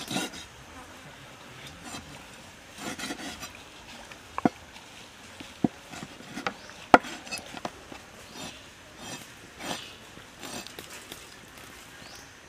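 Knife chopping raw chicken on a wooden cutting board: irregular knocks of the blade against the board, the sharpest near the middle, with softer slicing and scraping strokes between them.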